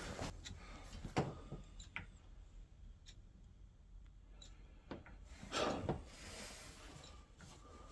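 Faint scattered knocks and clicks of handling and movement, the sharpest about a second in, with a short rustling scrape about five and a half seconds in.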